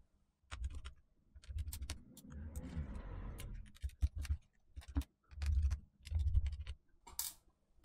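Small screwdriver and hands working inside an opened MacBook Air: irregular light clicks and taps with soft knocks, and a stretch of faint scraping near the middle, as the small screws holding the logic board are undone.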